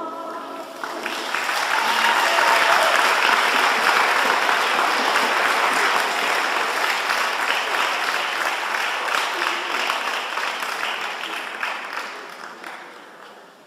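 The choir's last sung note dies away in the first second. An audience then claps, building within a couple of seconds, holding steady, and fading out near the end.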